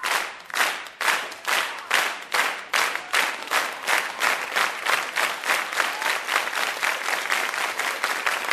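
Audience clapping in unison. The beat starts at about two claps a second, quickens steadily, and runs together into ordinary applause near the end.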